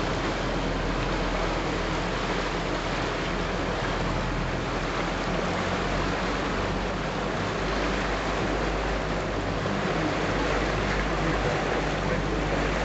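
Steady rushing noise of water and wind from a boat under way, with the low drone of the boat's motor underneath.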